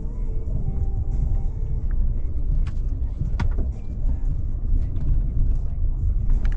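Vehicle driving slowly on a rough dirt forest track: a steady low engine and road rumble, with a few sharp knocks and rattles about three seconds in.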